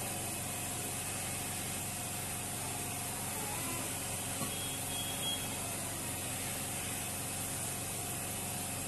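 A steady hum over a hiss, unchanging throughout, with no distinct taps.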